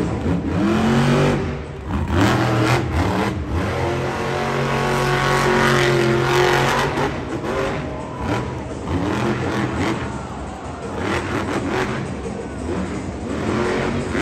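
Monster truck's supercharged V8 engine revving hard, its pitch climbing and dropping again and again.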